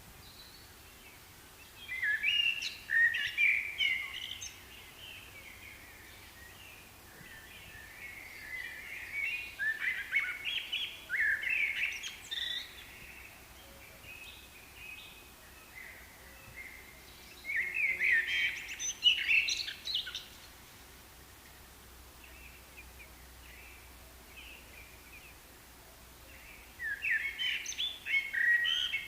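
Birds chirping and twittering in four bouts of quick, high notes, with quieter gaps between them.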